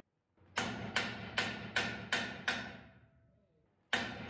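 Hammer blows on a steel automotive rotisserie stand, each ringing the metal: six quick strikes, about two and a half a second, then a pause and two more near the end. They are knocking loose the rotisserie's height adjustment, which is binding under the car body's weight.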